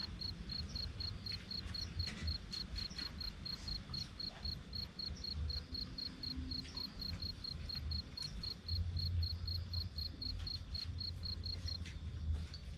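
A cricket chirping in an even run of short, high pulses, several a second, that breaks off shortly before the end. Under it are a low rumble and a few small clicks.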